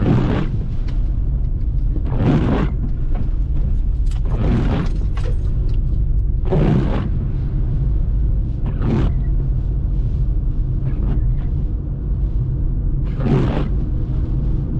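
Windshield wipers sweeping across a wet windshield, a swish about every two seconds with one longer pause, heard inside the car's cabin over the steady low rumble of the engine and tyres on a wet road.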